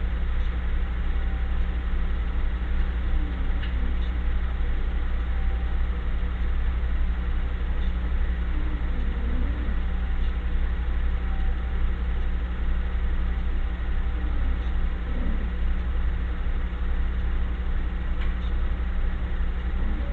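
A steady low mechanical hum, unchanging throughout, with faint short wavering sounds about every six seconds.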